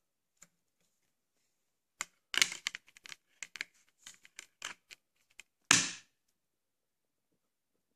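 Handling of a Blu-ray steelbook case and its packaging: a quick run of small clicks and rustles, then one louder snap near the end.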